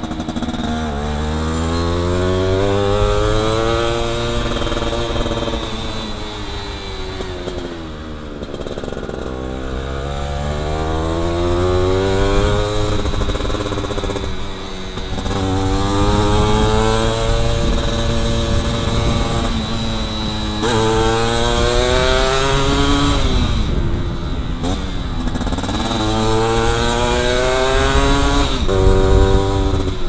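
Yamaha F1ZR two-stroke motorcycle engine being ridden hard, its pitch climbing through each gear and dropping again as the throttle is rolled off, about six times over.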